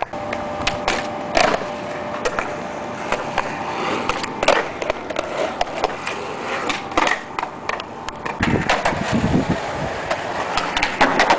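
Skateboard wheels rolling on concrete, with sharp clacks of the board and trucks hitting the ground. The rolling grows louder and heavier about eight seconds in.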